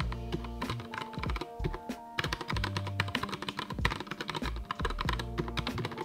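Fast typing on a Keychron K6 mechanical keyboard with brown switches: a quick, uneven run of key clacks.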